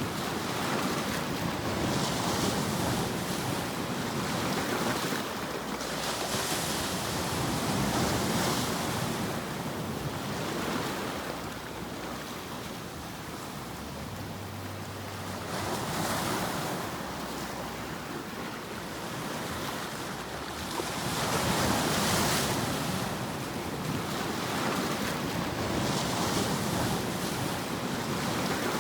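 Ocean surf: waves breaking and washing in, the hiss swelling and fading every few seconds.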